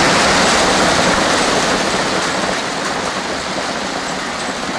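Heavy rain pouring down on a street, a loud steady hiss that eases a little over the seconds.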